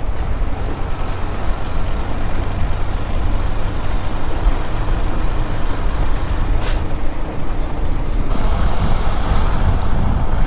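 Motorcycle riding noise at road speed on a KTM 390 Adventure X: wind rushing over the GoPro's microphone, with the single-cylinder engine and surrounding traffic underneath. A short hiss comes about seven seconds in, and the noise turns brighter and louder towards the end.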